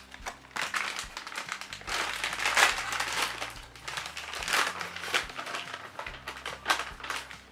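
Plastic dog-treat pouch crinkling and rustling in bursts as it is opened and a treat is taken out, over soft background music.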